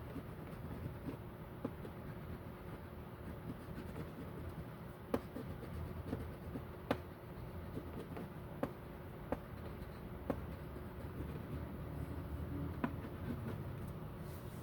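Coloring on paper: quiet strokes against the paper over a steady low hum, with about six sharp ticks spread irregularly from about five seconds in.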